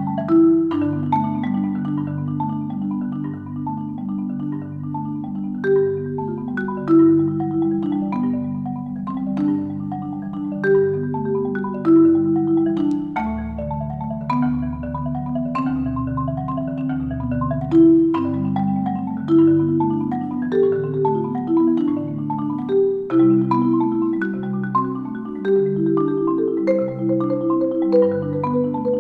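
Solo concert marimba, a Marimba One, played with mallets in a continuous flowing pattern of struck, ringing notes. A run of deep bass notes sounds from about halfway through for several seconds.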